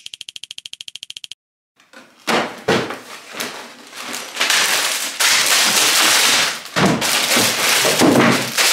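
A rapid, even train of clicks for about a second and a half, then a short pause. After that comes loud, continuous rustling and crinkling of LEGO paper parts bags and the plastic bags inside them as they are lifted out of the box, with knocks and rattles of loose bricks.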